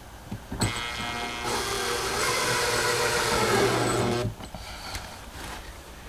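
Cordless drill driving a screw through a table pedestal's metal floor flange into the floor: one steady run of about three and a half seconds that stops abruptly.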